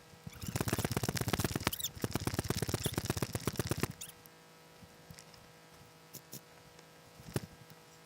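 Airsoft electric gun firing on full auto: two long bursts of rapid, even clicks at about 15–20 shots a second, with a short break between them, followed by a few single clicks.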